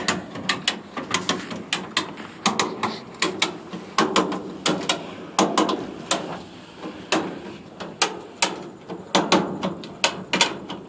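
Hand-worked ratcheting lifting gear cranked under a heavy compressor load, giving an irregular string of sharp metallic clicks and clanks, about three or four a second.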